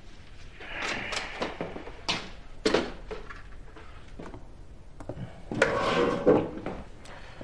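Handling sounds at a wooden bedside cabinet as things are set down and put away: rustling, then two sharp knocks just after two seconds, and a longer rustling scrape about six seconds in.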